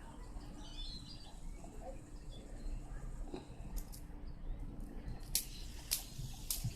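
Faint handling of a fidget spinner being spun on two fingers: low rumble with about four sharp clicks in the second half.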